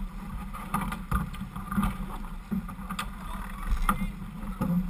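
Sailboat hull driving through choppy water, with water rushing and splashing along the side. About half a dozen sharp knocks come at irregular moments through it.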